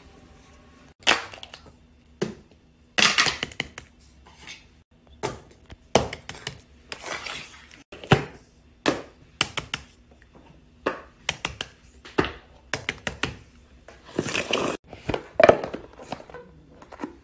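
Plastic fidget toys being handled: irregular sharp clicks and knocks mixed with short rustling scrapes, the busiest stretch near the end.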